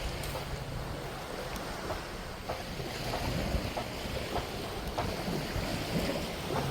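Sea waves washing onto a beach, with wind buffeting the microphone.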